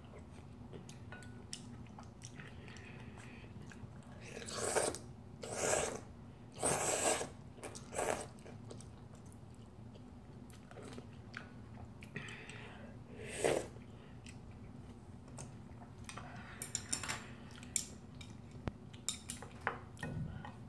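A person slurping instant ramyeon noodles in broth, several loud slurps about four to eight seconds in and again around thirteen seconds. Between them comes chewing, and near the end chopsticks click against the ceramic bowl.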